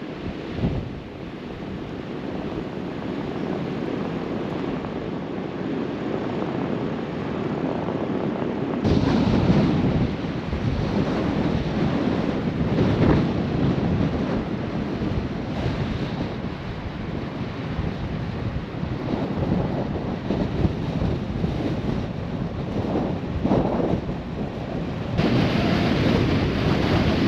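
Storm wind blowing hard across the microphone in gusts, with no clear tone, stepping up suddenly about nine seconds in and again near the end.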